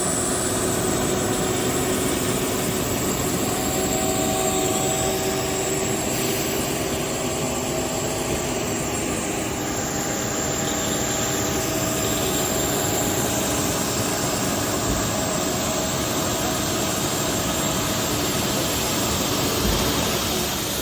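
Construction-site machinery running steadily: an engine drone with several constant tones and a thin high whine over it.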